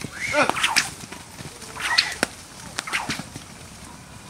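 A handler's whip cracking several times behind a moving herd of Arabian horses, the loudest crack about two seconds in, with a short call about half a second in.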